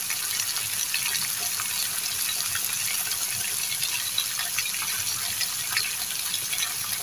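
Wild vine shoots frying in hot oil in a wok on a portable gas stove: a steady sizzle sprinkled with many small crackles and pops.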